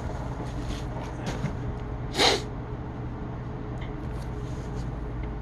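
A single sharp human sneeze, one of a sneezing fit, about two seconds in, over a steady low hum.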